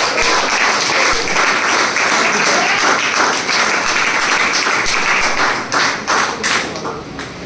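A roomful of students and teachers applauding, dense clapping that thins out to a few scattered last claps near the end.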